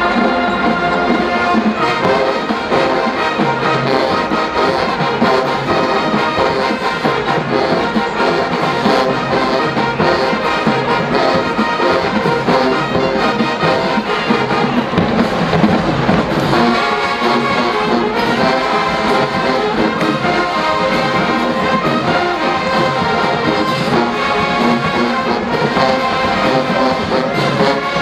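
College marching band's brass section playing a loud, full piece, with trombones and trumpets to the fore. A little past halfway there is a brief noisy swell, and the band moves to new chords.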